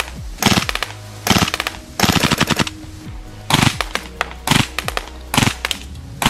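Poseidon FMG-9 gas blowback airsoft submachine gun firing in full auto, about six short bursts of rapid shots with the bolt cycling, the longest around two seconds in.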